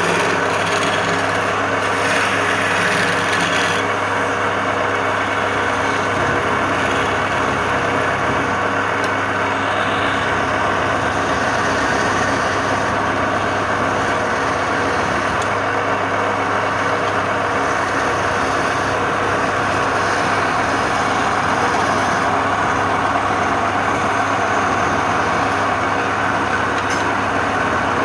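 Woodturning lathe running steadily, its motor humming under the continuous scraping noise of a tool working the spinning wood.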